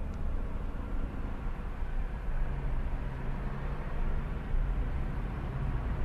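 Steady low rumble of a moving vehicle's engine and tyres on the road.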